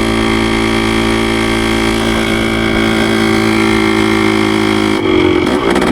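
1973 Yamaha CT3's freshly rebuilt 175 cc two-stroke single-cylinder engine running at a steady pitch, with a brief change in pitch about five seconds in.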